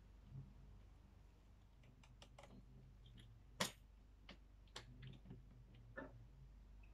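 Scattered small clicks and taps of plastic and metal parts as the top fitting of a ring light's tripod stand is handled and screwed together, the sharpest click about three and a half seconds in.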